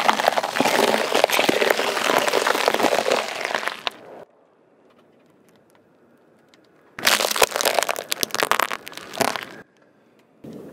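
Car tyre rolling over bell peppers and crushing them: dense crunching and cracking for about four seconds. After a pause, a second burst of cracking and crinkling lasting about two and a half seconds as the tyre flattens a foil-wrapped candy egg.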